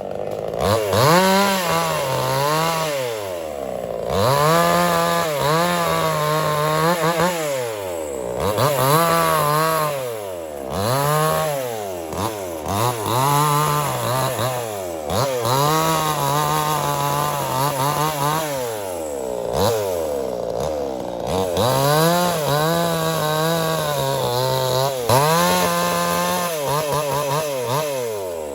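Small two-stroke chainsaw cutting wood, its engine revving up, holding high under the cut and dropping back again roughly every two to three seconds.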